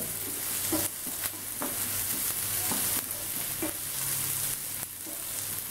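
Sliced onions and crushed garlic sizzling in hot oil in a non-stick frying pan, stirred with a wooden spatula that scrapes and taps the pan several times.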